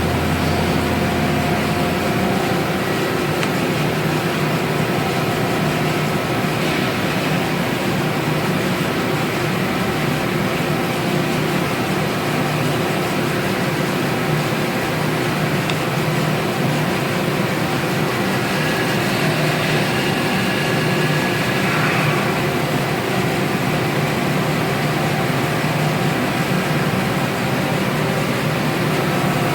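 Steady machine-shop din: machines running, with several steady hums and whines over a broad hiss. A deep hum drops out about two seconds in.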